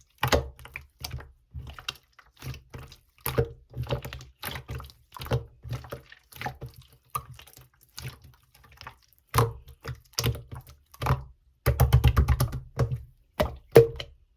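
Clear slime worked by hand: an irregular string of wet clicks and pops, with a fast run of them near the end.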